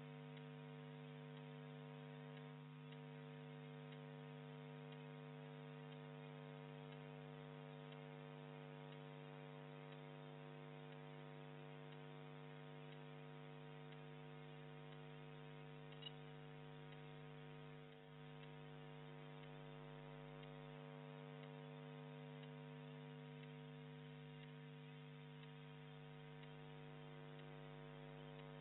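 Faint, steady electrical mains hum, a low buzz with many overtones, with one small click a little past halfway.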